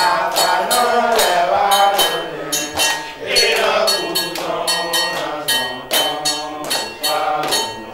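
Voices chanting a song together over rhythmic percussion, a few sharp strikes a second.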